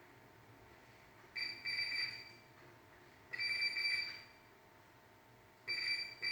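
Electronic beeper sounding high, steady beeps of uneven length: two short beeps, then a longer one about two seconds later, then two more short ones near the end.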